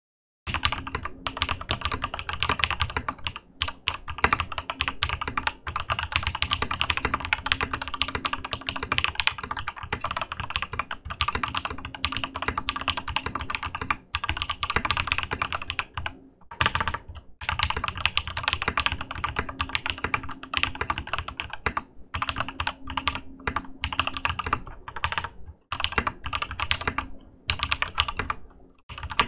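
Typing on a Ramaworks KARA mechanical keyboard with its internal dampener removed: lubed SoHo R2 switches under PBT keycaps, clacking in fast, continuous runs with a few brief pauses.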